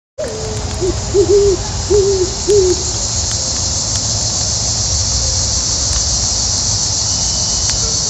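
An owl hooting: one long hoot that drops in pitch, then three shorter hoots, all within the first three seconds. Under it, a steady chorus of crickets and the faint crackle of a campfire.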